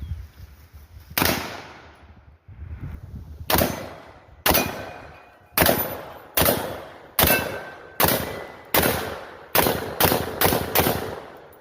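Black Rain Ordnance AR-15 rifle fired semi-automatically, about twelve shots, each with a ringing echo tail. A single shot comes about a second in, then after a pause a string of shots that speeds up, ending in four quick shots less than half a second apart.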